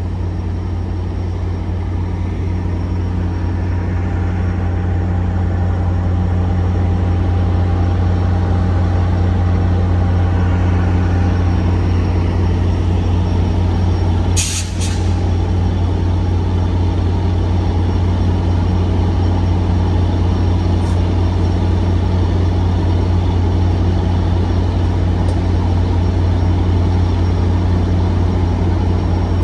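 A Metrolink commuter train standing at the platform, running with a steady low hum. There is a short hiss about halfway through.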